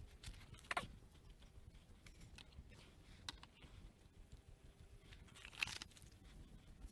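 Faint handling sounds of raised-bed parts: scattered light clicks and rustles, with two slightly louder knocks, one about a second in and one near the end.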